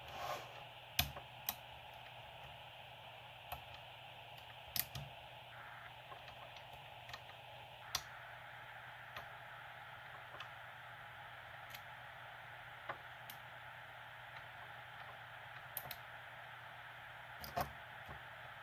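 Irregular small metallic clicks and ticks of a hook pick and tension wrench working a pin-tumbler lock's pins during single-pin picking, a dozen or so scattered clicks with a few sharper ones, over a steady background hiss.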